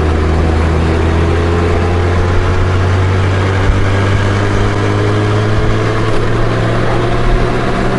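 Honda Goldwing GL1500 flat-six engine running on the move, a steady low hum with an even engine note.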